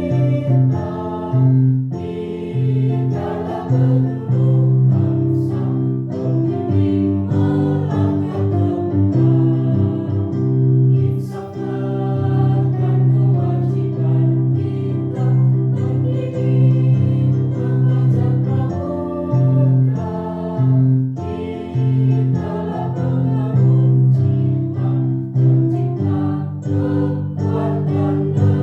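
A school choir singing together over steady instrumental accompaniment.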